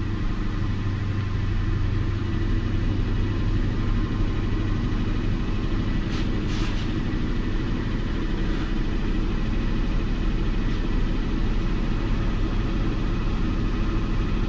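Lincoln MKT engine idling steadily with cylinder 5 dead-misfiring, not contributing at all.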